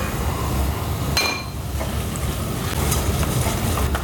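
Wire balloon whisk stirring grated cheese into aubergine sauce in a stainless-steel saucepan: scraping, with a sharp ringing metal clink about a second in and lighter taps near the end, over a steady low hum.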